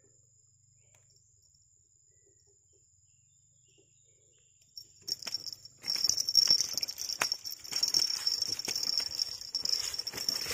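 Near silence for the first few seconds. Then, about five seconds in, a loud, steady, high-pitched insect buzz starts, with the crackling and rustling of dry leaf litter.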